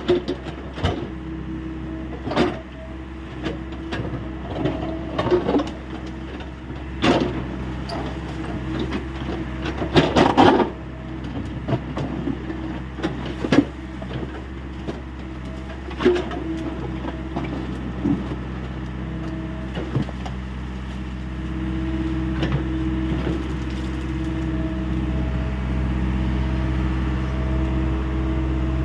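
Hyundai 85A Smart excavator's diesel engine running steadily, with irregular metallic knocks and clanks from the machine working every few seconds. The engine grows a little louder and steadier in the last several seconds.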